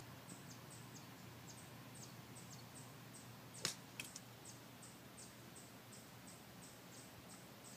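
Golf club striking through sand on a bunker shot: one short, sharp impact about three and a half seconds in. Faint high chirps repeat a few times a second behind it.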